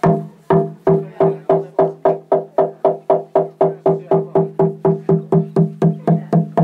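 Garamut, a hollowed-log slit drum, beaten in a run of single strokes, each ringing with a low, hollow wooden tone. The strokes speed up steadily from about two a second to about four a second.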